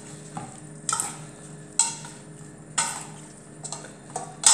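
Sliced artichokes being tossed with two metal utensils in a stainless steel bowl: the utensils scrape and clink against the bowl about once a second, with the sharpest clink near the end.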